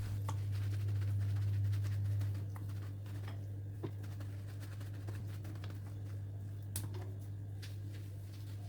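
Faint, scattered pats and rustles of paper towels pressed onto raw chicken skin to dry it, over a steady low hum.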